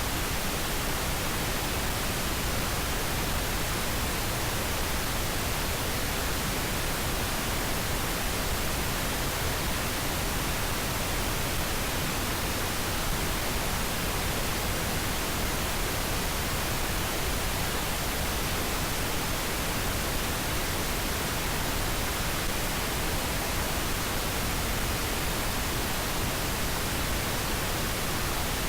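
Steady synthetic pink noise: an even, unbroken hiss spread across the whole range of pitch, weighted toward the low end.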